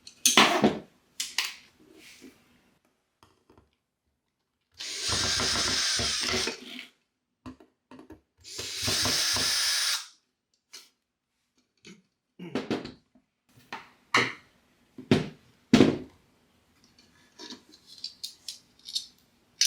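Power drill run twice, about two seconds each time, backing out the screws that hold the doorbell's wedge mount to the wall. Later come several sharp clicks and knocks.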